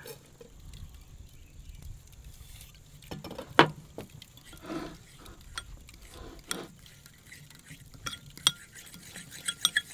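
Metal spoon stirring a thick Dijon mustard, oil and garlic paste in a ceramic bowl, with scattered clinks of the spoon against the bowl. One sharp knock about three and a half seconds in, and a quick run of ringing clinks near the end.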